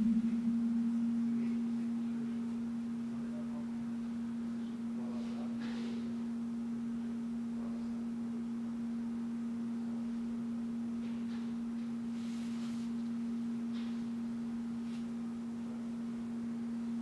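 A single steady, pure low electronic tone, held at one pitch without change, a little louder in the first couple of seconds.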